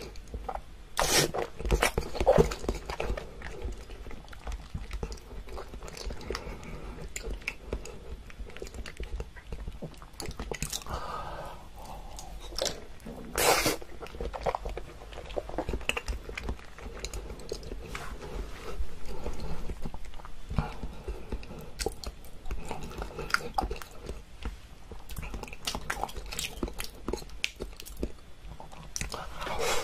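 A person chewing and biting food close to the microphone, with many irregular sharp mouth clicks and a few louder bites, about a second in and about thirteen seconds in.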